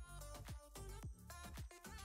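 Quiet background music with a steady beat: a deep kick drum about twice a second under a melody.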